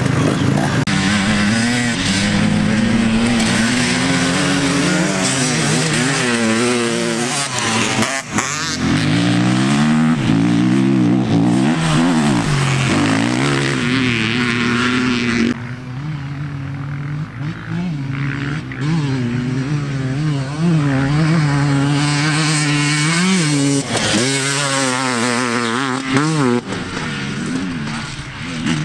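Enduro dirt bike engines revving as the bikes ride past, pitch climbing and falling again and again with the throttle and gear changes. The sound drops abruptly in level about halfway through.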